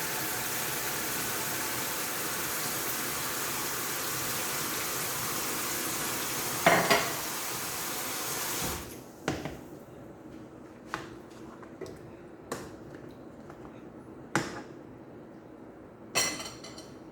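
Kitchen tap water running steadily into the sink, with one clatter partway through, then shut off about halfway in; after that several separate clinks and clanks of dishes and pots being handled, the last a short rattle.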